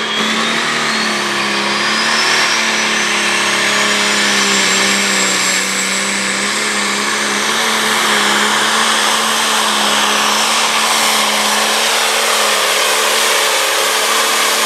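Super Stock class turbocharged diesel pulling tractor engine at full throttle under heavy load while dragging the sled, running at a steady pitch. A high turbocharger whine rises over the first six seconds, then holds near the top.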